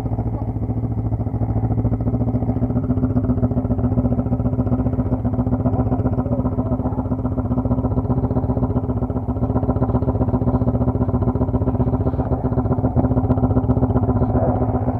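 ATV (quad bike) engine running steadily at constant revs, with an even, rapid pulse and no rise or fall in pitch.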